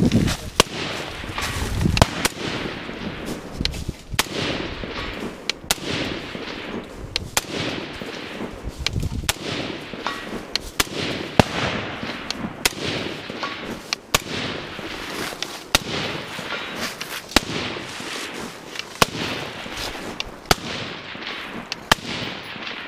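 5.56 AR-pattern rifles firing single shots at uneven intervals, roughly one a second, for the whole stretch.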